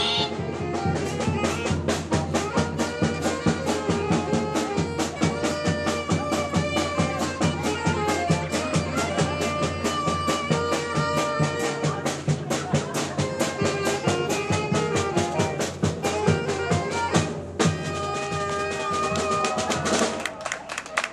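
Brass band music with a steady drum beat, trumpets carrying the tune. The music stops near the end.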